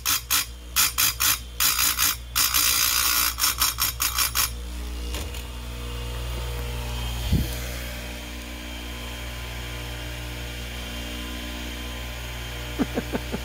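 Electric chain grinder's spinning wheel grinding the cutters of a dull chainsaw chain in quick short touches, several a second, throwing sparks, until about four and a half seconds in. After that a steady low hum, with a single knock about seven seconds in.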